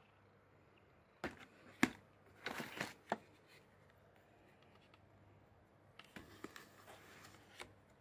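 Handling noises of a plastic toy laser level being moved about over plastic-wrapped instant noodle cups: a few sharp plastic clicks and knocks, the loudest just under two seconds in, a short rustling clatter around three seconds, and lighter clicks later on.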